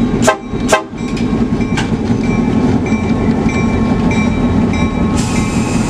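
EMD SW8 switcher locomotive running down the track, its eight-cylinder 567 diesel working steadily under the rolling of the wheels on the rails. Two sharp clacks come under a second in, and a steady hiss joins near the end.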